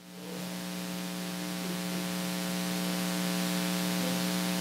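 Steady electrical mains hum with static hiss in the audio feed, a buzz of many evenly spaced tones. It swells in over about the first second and then holds steady while no one speaks into the microphone.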